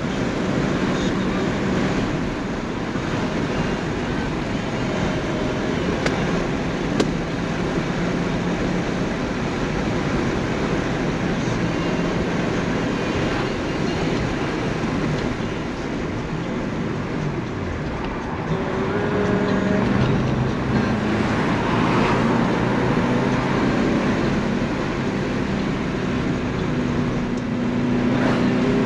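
Porsche 928 S V8 engine heard from inside the cabin while driving, with steady road and wind noise. The engine note falls away and then climbs and gets louder about two-thirds of the way through as the throttle opens again.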